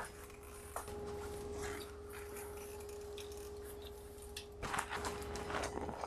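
Brompton folding bicycle being folded by hand: light clicks and rattles from the frame, hinges and cables, then a louder clatter of metal knocks about five seconds in as the handlebar stem is folded down.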